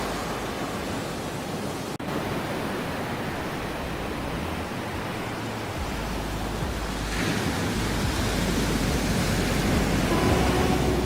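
Ocean waves washing on the shore in a steady hiss of surf, swelling louder about seven seconds in as a bigger wave comes in.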